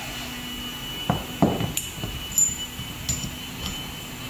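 Metal hydraulic hose fittings knocking and clinking against a hydraulic cylinder and workbench as the hose is handled and coupled: a few dull knocks about a second in, then light metallic taps and a brief ring. A steady faint hum runs underneath.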